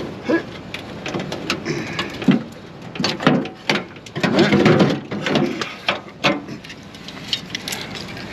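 Irregular clattering, knocking and rattling of metal parts being handled, with a louder stretch of rattling about halfway through: the old window regulator and motor being worked out of the door.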